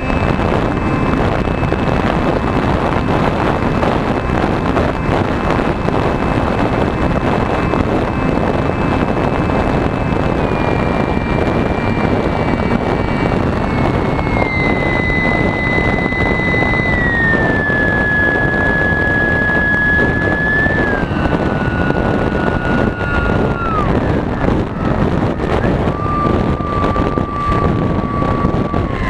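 Electric RC plane in flight, with a loud rush of air over the onboard camera. The motor and propeller whine steps down in pitch several times as the throttle is eased back. The whine dips sharply about three quarters of the way through, then comes back at a lower pitch.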